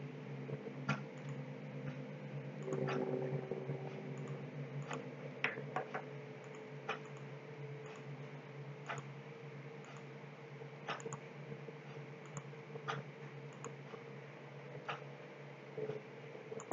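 Computer mouse button clicking, single sharp clicks about every one to two seconds as vertices are placed, over a steady low hum.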